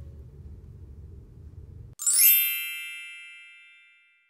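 Low steady room noise that cuts off about two seconds in, replaced by a bright chime sound effect: a quick upward sparkle, then several bell-like ringing tones that fade away.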